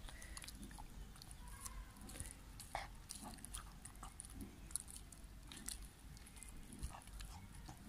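American cocker spaniel biting and chewing a soft peeled banana held in a hand, faint irregular chewing clicks.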